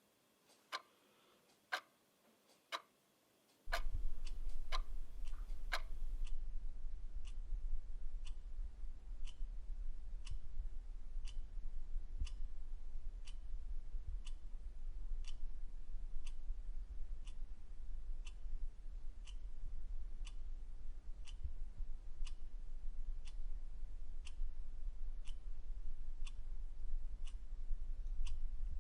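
A clock ticking steadily, with sharp, even ticks about once a second. A few seconds in, a low steady hum joins it. Soon after, the ticking becomes quicker and duller, a little under two ticks a second.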